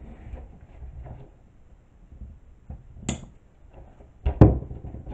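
Handling noise from crafting work with a wire wreath frame, zip ties and wooden clothespins: faint rustling, a sharp click about three seconds in, and a louder knock near the end.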